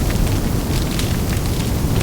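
Large fire burning: a steady low rumble of flames with many sharp crackles and pops scattered through it.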